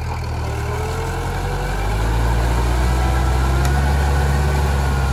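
Kubota M6040SU tractor's diesel engine running as the tractor sits stuck in paddy mud, getting louder about two seconds in.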